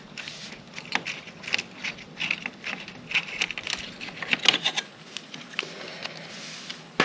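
An exhaust valve servo motor being worked by hand and pulled free of its mount on a Ducati SuperSport 939: a quick run of small clicks, knocks and scrapes from the housing rattling against its bracket, dying down about five seconds in.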